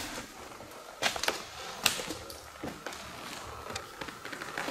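Footsteps scraping and crunching over a debris-strewn floor, with a few irregular sharp clicks and knocks.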